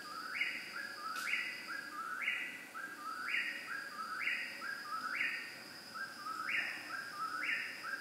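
Eastern whip-poor-will singing, repeating its three-note whip-poor-will call a little faster than once a second, each call rising to a higher held note. A steady high-pitched hum runs behind it.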